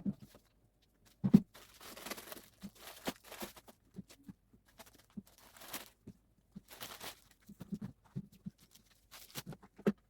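Household items being handled: scattered light knocks and taps, with stretches of rustling and crinkling about two seconds in and again around six to seven seconds in.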